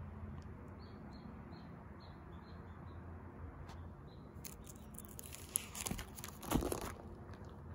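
Clear plastic photo-album sleeves crinkling and rustling as a page is turned: a burst of crackling from about four to seven seconds in, loudest near the end of it, over a faint low hum.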